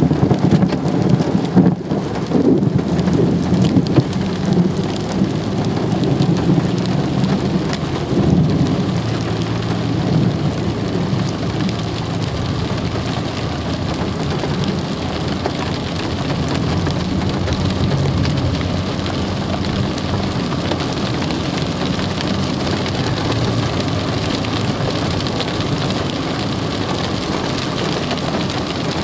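Steady rain falling throughout, with thunder rumbling low during the first several seconds and fading away by about ten seconds in.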